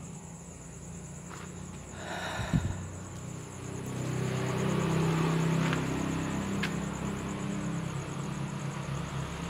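Insects buzzing steadily at a high pitch, with a low hum swelling from about four seconds in and a short knock about two and a half seconds in.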